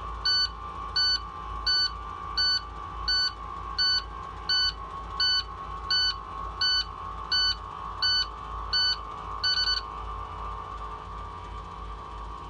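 School bus dashboard warning beeper sounding about fourteen short, evenly spaced beeps, roughly one every 0.7 seconds, which stop near ten seconds in, over a steady high whine. It is the key-on warning before cranking an IC CE bus's Cummins 6.7L diesel that is hard to start.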